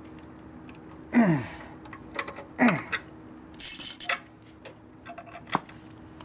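Hand work on a panhead's Linkert carburettor throttle linkage and cable: two short sounds that slide down in pitch, a brief scraping hiss past the halfway point, and a sharp click near the end, over a faint steady hum that stops partway through.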